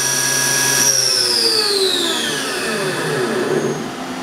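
Spindle of a Sharnoa HPM 30 vertical machining center running with a high whine at its top speed of 8,000 rpm, then stopping: about a second in, the whine begins falling steadily in pitch as the spindle spins down, leaving the machine's steady hum.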